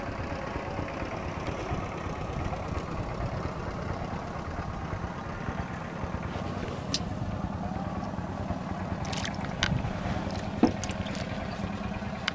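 A steady low mechanical drone, with a few sharp clicks and knocks a few seconds before the end.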